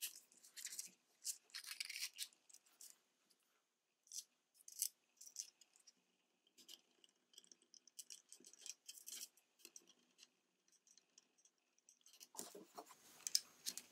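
Faint, scattered clicks and light scrapes of a BMW on-board computer's plastic housing and circuit boards being pressed together and screwed up with a small screwdriver.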